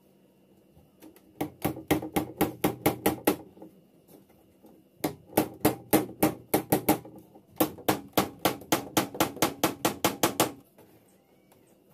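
Small nails being tapped into thin plywood on a wooden frame with a pair of pliers used as a hammer: three runs of quick, sharp knocks, about five a second, each run lasting two to three seconds.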